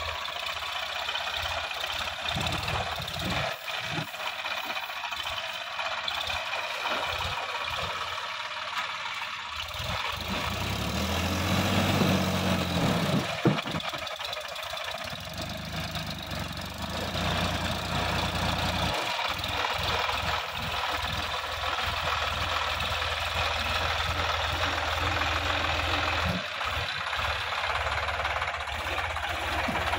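Sonalika DI-50 RX tractor's diesel engine running steadily while the tractor drives out of a flooded paddy field. About ten seconds in the engine grows louder and works harder for several seconds as it climbs the bank, with one sharp knock near the loudest point, then it settles back to a steady run.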